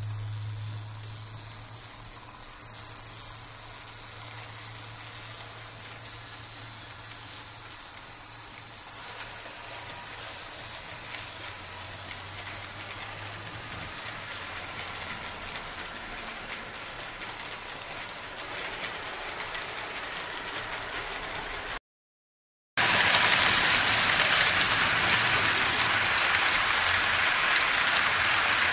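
Märklin HO-scale model train coaches rolling along the layout's track: a steady rushing clatter of small metal wheels on rail. A low hum fades out partway through, and after a brief dropout the rolling noise is much louder.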